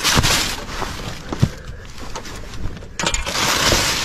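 Plastic bag and cardboard rustling and crinkling as junk is moved by hand, with a single knock about a second and a half in. The rustling gets louder near the end as a plastic bag is lifted.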